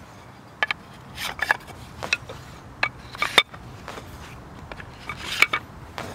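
Wooden poles clacking and knocking against each other as they are picked up and handled: a string of irregular sharp wooden knocks, some in quick pairs and triplets.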